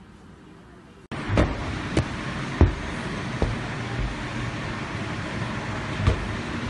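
After a quiet first second, a football being kicked about an indoor play cage: a handful of irregular thuds, the loudest about two and a half seconds in, over a steady background rumble.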